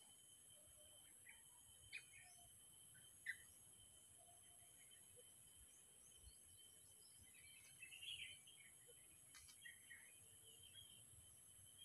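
Faint, scattered short chirps of small birds, a few more together about eight seconds in, over a steady high-pitched insect drone.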